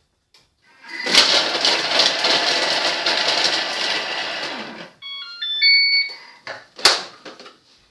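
Thermomix TM31 chopping half an onion at speed 5: the blades run loudly for about four seconds, then stop. A quick series of short electronic beeps at different pitches follows, the machine's signal that the timed run is over, and a single sharp click comes near the end.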